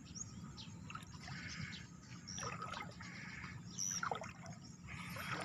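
Faint trickling and lapping of water, coming and going every second or so, with a few short high chirps.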